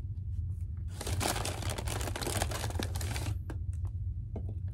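Paper takeout bag crinkling as it is handled and opened: a dense crackle for about two seconds starting a second in, then a few scattered clicks, over a steady low hum.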